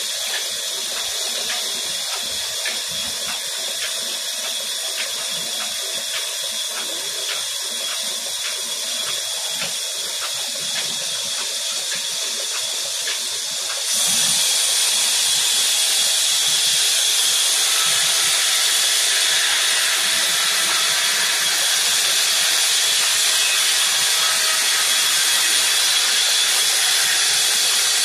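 Large band saw cutting through a timber beam: a steady, loud hiss, with faint regular ticks underneath in the first half. About halfway through it becomes louder.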